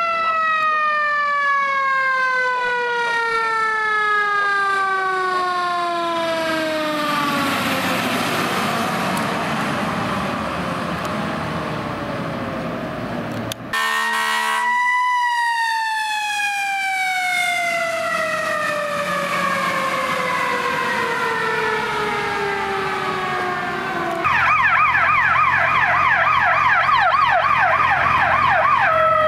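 Fire apparatus sirens: a siren winds down in a long, slow falling wail, then again after a short steady horn blast about halfway through. Near the end, a rapid warbling electronic siren sounds over the steady drone of the truck's engine.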